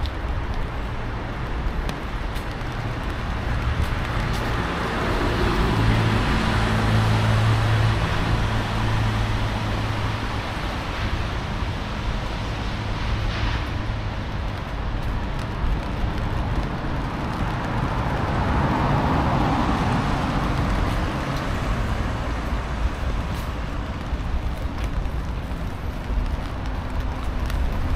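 Street traffic: a steady wash of road noise, with vehicles passing by twice. The first pass, about five seconds in, carries a low engine drone; the second comes about eighteen seconds in.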